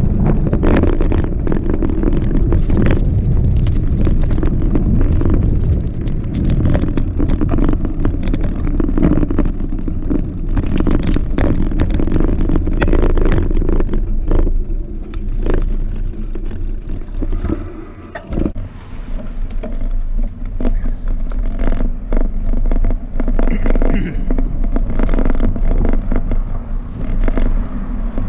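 Wind buffeting the microphone of a handlebar-mounted camera on a moving bicycle, a constant low rumble, with irregular rattles and knocks as the bike rolls over bumpy paving. The rumble eases briefly a little past halfway.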